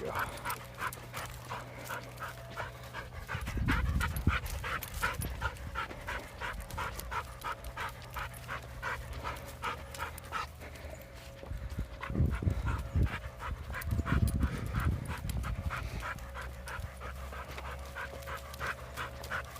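A dog panting hard and fast, about three breaths a second, winded from pulling and running on a walk. A few bursts of low rumble come through about four, twelve and fourteen seconds in.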